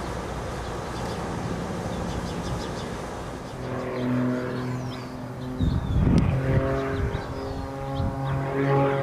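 Airplane engine sounding in the distance, then from about three and a half seconds in a louder, steady engine drone with a clear pitch and overtones from an aerobatic airplane trailing smoke. A burst of low rumble comes about six seconds in.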